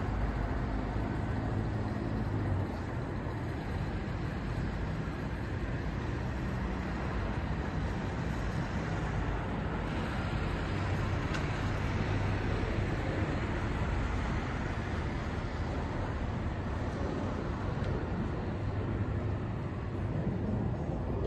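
Steady city traffic noise: a constant rumble and hiss of vehicles, with a low engine hum that rises and falls now and then.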